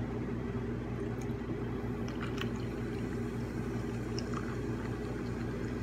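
Air conditioner humming steadily, with a few faint wet clicks of chewing from someone eating chicken.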